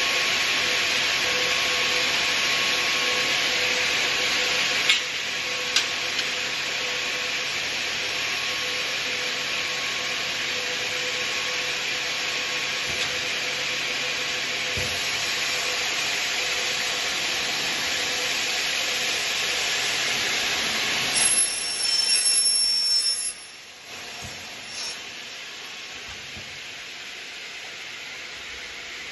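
Elumatec DG 79 double mitre saw running, its motors and spinning blades giving a loud steady whine over a hiss, with a couple of sharp clicks. Near the end a brief louder stretch with a high squeal, then the sound drops suddenly to a quieter steady hiss.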